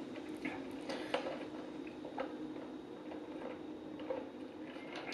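A person drinking through a straw, with soft, irregular clicking gulps as she swallows, about two a second.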